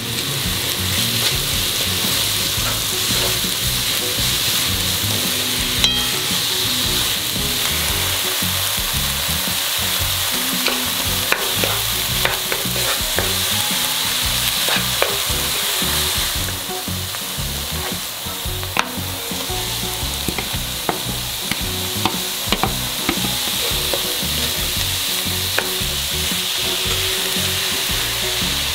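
Finely chopped onion, later joined by celery and carrot, sizzling steadily in butter in a nonstick pan while a wooden spoon stirs it, scraping and tapping against the pan now and then.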